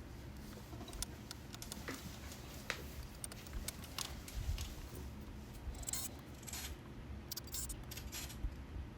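Scattered small clicks and light metallic clinks from hand-handling screws and tools while screws are being fitted, with no power tool running.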